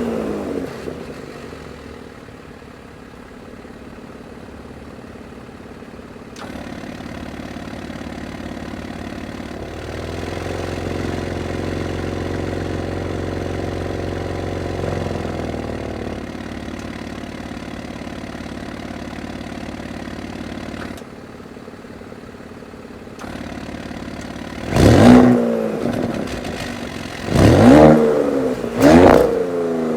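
2020 Audi S7's 2.9-litre twin-turbo V6 with Audi sport exhaust idling steadily, its pitch and level stepping up and down a little. Near the end the engine is blipped three times in quick succession, each rev rising sharply and dropping straight back to idle.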